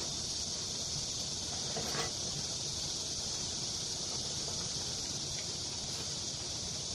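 A steady high hiss, with one light knock about two seconds in from parts being handled on a partly assembled Honda GX35 engine.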